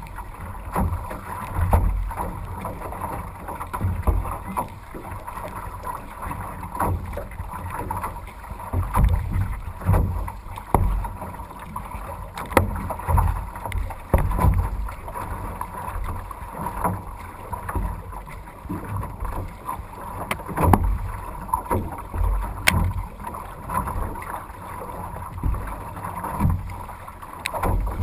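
Wind buffeting the microphone in irregular low gusts as a canoe is paddled through choppy water, with splashes and slaps of water against the hull and paddle.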